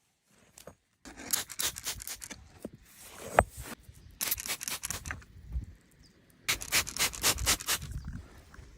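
Stones and soil scraped and shifted by hand in three spells of quick scraping, with one sharp stone-on-stone clink about three and a half seconds in.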